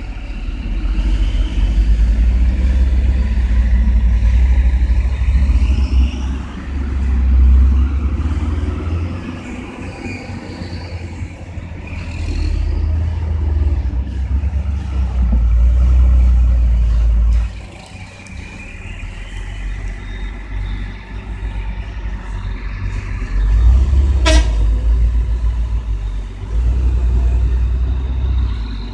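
Hino 500 Ranger dump truck's diesel engine running as the truck drives past, a heavy low rumble that swells and eases in long stretches. A brief sharp click about four-fifths of the way through.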